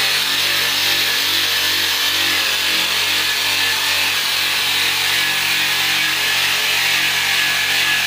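Electric drill fitted with a round sanding disc, running steadily with the disc pressed against the face of a wooden door: motor whine plus the hiss of abrasive grinding on wood.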